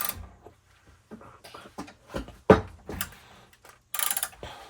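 A socket ratchet being worked on a garage door opener's nuts: scattered clicks and knocks, with one heavy thump about halfway through and a quick run of clicks near the end.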